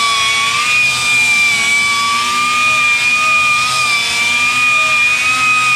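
Power tool spinning a small polishing pad against an aluminum wheel, running at a steady high-pitched whine that wavers slightly as it is worked across the surface.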